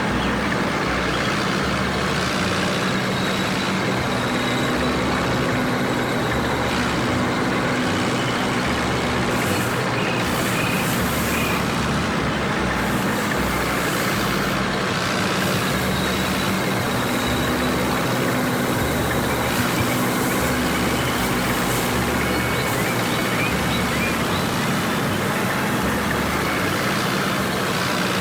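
Heavy machine engine running steadily, with a low throb pulsing about once a second.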